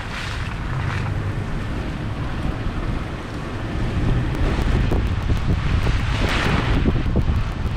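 Rain falling with wind buffeting the microphone, a steady rushing noise over a rumbling low end that gets louder about halfway through.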